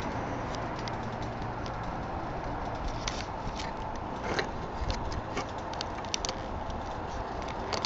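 Scattered sharp clicks and taps over a steady low background rumble, typical of handling noise on a handheld camera.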